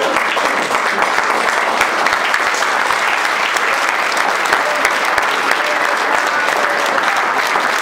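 A small group of people applauding steadily, clapping hands in an even patter that lasts throughout.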